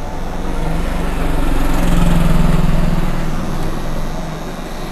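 A steady motor hum that swells to its loudest about two seconds in and then fades back down.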